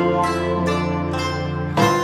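Instrumental background music of plucked strings over a held low note, with a new chord struck near the end.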